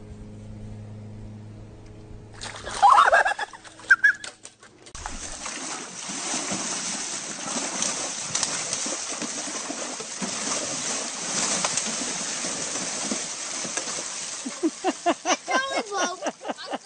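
Water splashing and sloshing as a cow wades in an above-ground backyard pool, a long even hiss of water lasting several seconds. Before it come a few short loud calls that glide upward in pitch.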